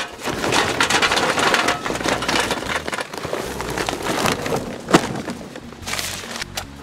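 Sheets of newspaper being crumpled and rustled by hand, packed under a charcoal chimney starter, as a dense crackle. There is a single sharp knock about five seconds in.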